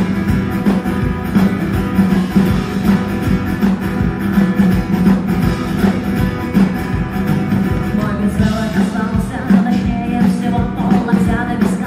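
Acoustic guitar strummed in a steady rhythm, played live; a woman's singing voice joins about eight seconds in.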